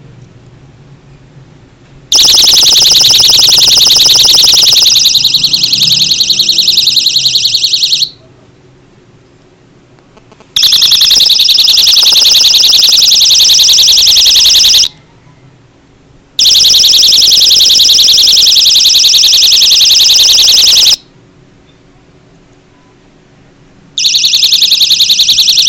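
Personal safety alarm key ring sounding a loud, piercing, rapidly pulsing high-pitched siren. It is set off four times, in bursts of about four to six seconds with short silent gaps between them.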